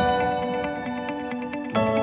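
Soft ambient instrumental background music with sustained chords, a new chord coming in near the end.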